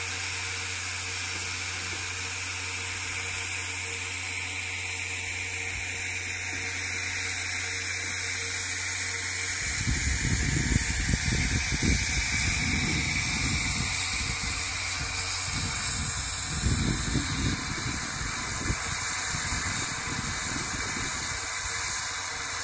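Narrow-gauge steam locomotive standing with steam hissing steadily. From about ten seconds in, an uneven low rumble joins it.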